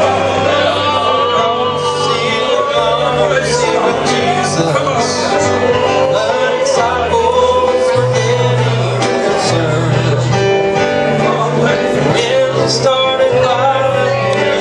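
Live gospel song: a man singing over band accompaniment, with a bass line changing notes every second or so and light cymbal hits.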